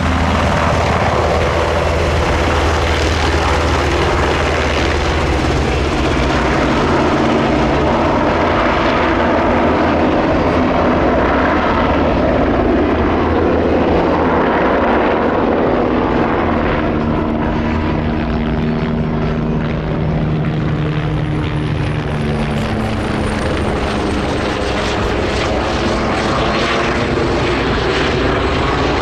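Swedish Army UH-60M Black Hawk helicopter running: a steady loud drone of rotor and twin turbine engines, its tones shifting in pitch in the second half, with a high turbine whine falling in pitch about three-quarters of the way through.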